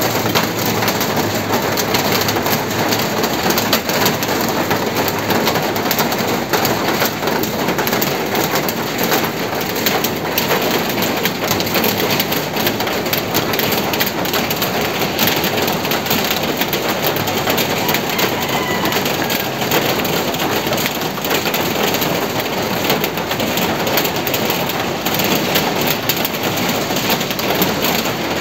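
Heavy rain falling steadily, a dense even hiss with no letup.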